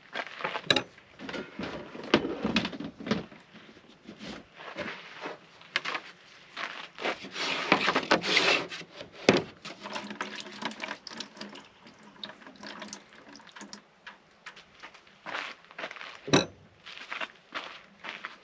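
Liquid being poured and sloshed, mixed with irregular clicks and knocks of things being handled.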